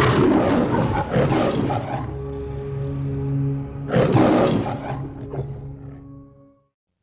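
A recorded lion roaring twice over sustained orchestral music, as in a film-studio logo intro. The sound fades out to silence near the end.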